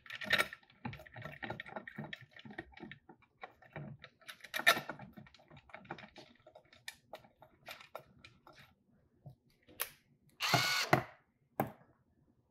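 Scattered clicks and taps of metal bolts and parts being handled and fitted onto a spring balancer's casing by hand, with one sharper click about five seconds in. Near the end comes a brief pitched whir of under a second.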